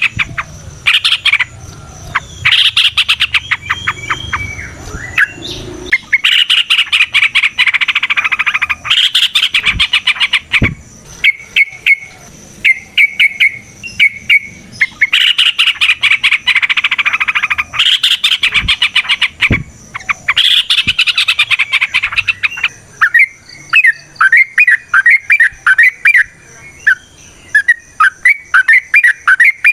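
Yellow-vented bulbuls (trucukan) singing: long runs of rapid, rattling chatter. Later these give way to a quick series of repeated down-slurred whistled notes.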